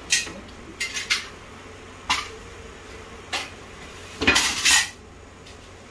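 Hand snips cutting a light-gauge steel ceiling channel (M-bar): sharp metallic snips and clinks, spaced a second or so apart, with a louder clatter of metal about four seconds in.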